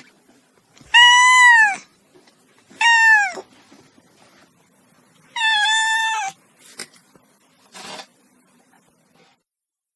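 Domestic cat meowing loudly three times, each call arching up and then down in pitch.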